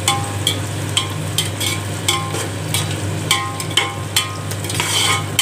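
Sliced onions sizzling in hot sunflower oil on full flame, stirred with a perforated metal slotted spoon in a large metal pot. The spoon scrapes and knocks the pot, giving several short clinks that ring briefly over the steady sizzle.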